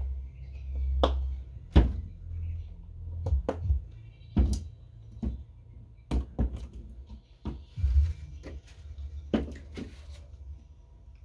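About a dozen irregular knocks and clicks over a low, uneven rumble: handling noise in a small room.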